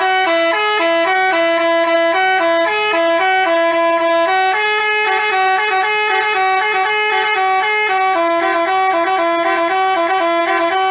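Basuri telolet bus horn, a multi-trumpet electric horn, playing a loud, quick melody of short held notes that change pitch every fraction of a second; it starts and stops abruptly.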